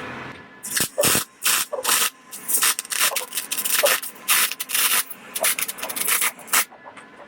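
Wire-feed welder arc crackling and popping in uneven bursts as a bead is run on steel, starting just under a second in and stopping near the end. The arc is erratic because the wire speed and voltage are not yet dialed in; the welder judges this bead even worse than the last.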